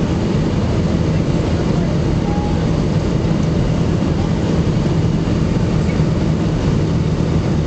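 Steady cabin noise of an airliner descending on approach to land: a loud, even rumble of the jet engines and airflow with a steady low hum.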